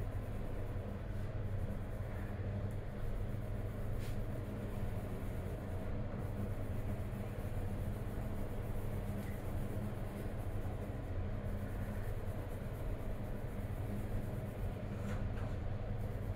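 Colored pencil scratching on paper as blue is shaded in, faint against a steady low hum, with a single small tick about four seconds in.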